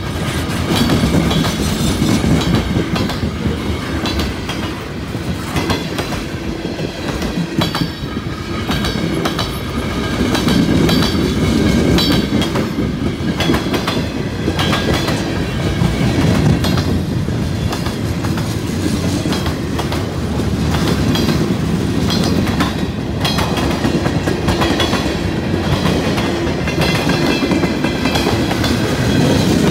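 Freight train cars rolling past close by: a steady rumble of wheels on rail with rapid clickety-clack as the wheels cross rail joints, and faint metallic wheel squeal coming and going.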